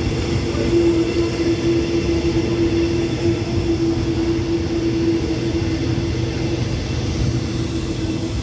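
Thai special express passenger train at a station platform: a steady mechanical drone with one held low tone, with no clear wheel clicks.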